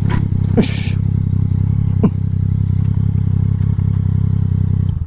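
Motorcycle engine running at a steady low note as the bike rolls to a stop, with a couple of brief sharp clicks about half a second and two seconds in; the engine sound cuts off abruptly at the end.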